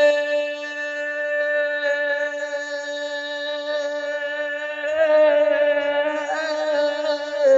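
A man singing a naat, holding one long sustained note with almost no change in pitch. The note swells again about five seconds in.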